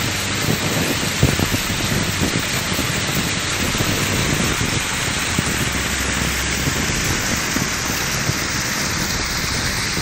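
Waterfall water rushing and splashing down a rock face: a steady, even hiss with small scattered splashes.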